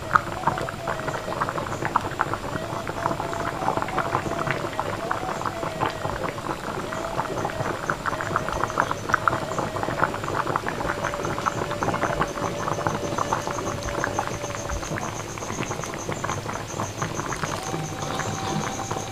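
Pot of coconut-milk gulai with bitter melon and fish at a rolling boil, bubbling and popping rapidly and steadily.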